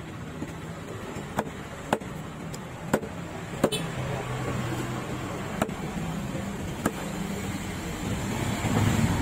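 About eight sharp, irregularly spaced knocks of a knife striking a wooden chopping block while cutting Atlantic bonito into pieces. Behind them is a steady drone of road traffic and engines that grows louder near the end.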